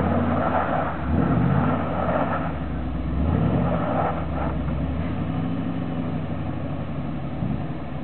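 Full-size pickup truck's engine revving in two short bursts as the truck crawls over rocks, then running steadily at low revs for the rest of the time.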